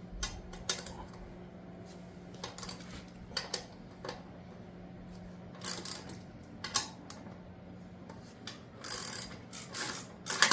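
Hand tools working on motorcycle nuts and bolts: scattered metallic clicks and clinks in short clusters, over a steady low hum.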